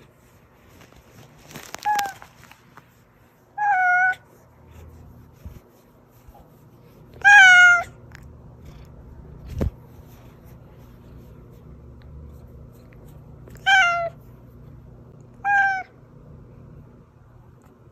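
A domestic cat meowing: five separate meows a few seconds apart, each sliding down a little in pitch at its end, the loudest about seven seconds in. A single short knock comes about ten seconds in.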